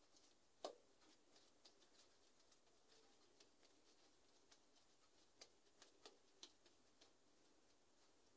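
Near silence, with faint soft clicks and pats from oiled hands shaping balls of dough on a countertop. The clearest tap comes just under a second in, and a few more come around the middle.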